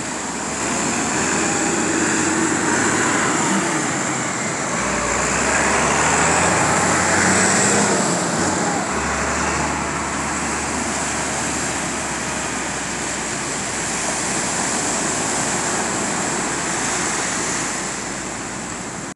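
Surf breaking and washing up a sandy beach: a steady rushing noise, with a deeper rumble that swells about five seconds in.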